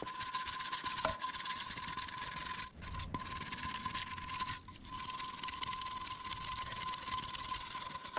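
A metal tool scraping and rubbing rust off the corroded centre bore of an alloy wheel: a continuous rasping with a steady high tone running through it, pausing briefly a few times.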